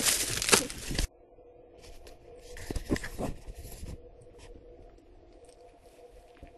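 A louder burst of noise cuts off abruptly about a second in. After it comes a quiet room with a faint steady hum, and soft rustling and handling sounds of food packaging being touched.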